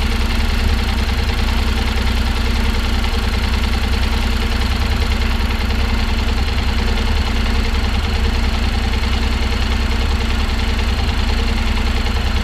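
Honda NC750X's 745 cc parallel-twin engine idling warm, heard close to the engine: a steady run with a fast, even mechanical clatter. This clatter is what a new owner took for valves tapping; the owner of this bike holds it normal for the NC, more like a car engine heard with the hood open.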